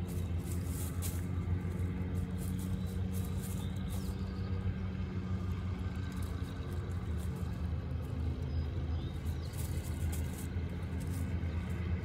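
A steady low engine hum, with a light crackle of dry leaves as a Weimaraner roots and sniffs through leaf litter.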